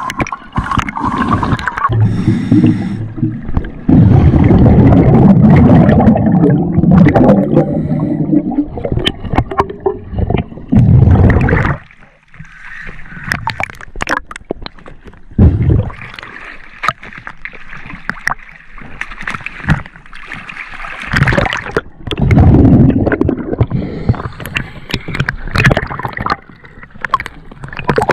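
Scuba diver's exhaled bubbles gurgling and rushing past the camera in long, loud bursts a few seconds apart, with quieter, clicky stretches between breaths. Near the end the camera reaches the surface beside the boat with a slosh of water.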